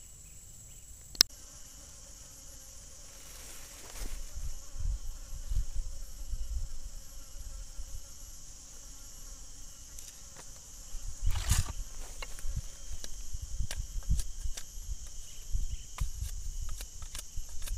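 Steady high-pitched drone of insects, with a sharp click about a second in. Irregular low thumps and rustling follow as a wire cage rat trap is handled in the grass, the loudest burst coming about halfway through.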